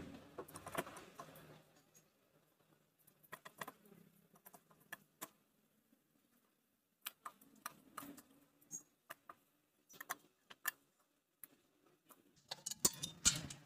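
Scattered light metallic clicks and knocks as the clutch cover of a Mahindra Centuro Rockstar's engine is handled and eased off by hand, with small metal parts clinking. The clicks come in loose clusters, with a denser run near the end.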